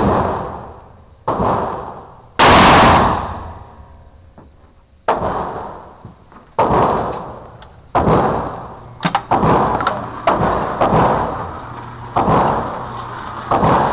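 A string of 12-gauge shotgun blasts, about eight, spaced one to two seconds apart. Each shot cracks and then fades out in a long echo. The loudest comes about two and a half seconds in.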